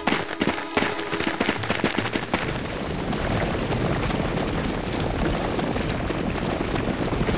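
Stampede of a crowd of schoolgirls running: a dense clatter of many footsteps, with sharper separate knocks in the first couple of seconds. Music underneath.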